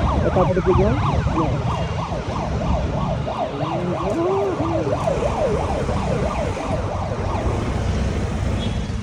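Busy city street ambience: a steady low traffic rumble under many overlapping rising and falling tones, with a wavering wail about four to five seconds in.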